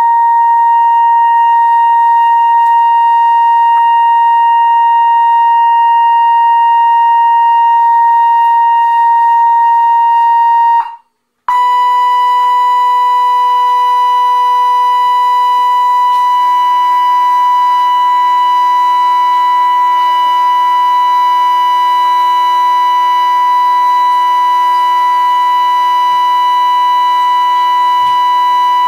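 Steady high-pitched sine tone near 1 kHz driving a cymatics setup. It cuts out for a moment about eleven seconds in and comes back slightly higher, with fainter lower tones sounding under it.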